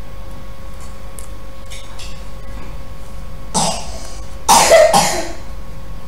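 A person coughing: one short cough about three and a half seconds in, then a louder pair of coughs about a second later.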